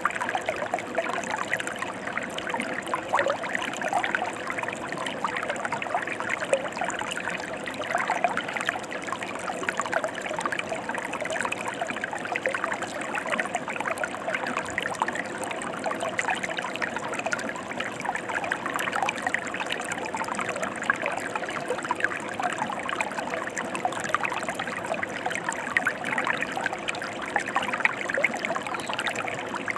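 Mountain stream flowing over rocks: a steady rush of water with constant small splashes and trickles.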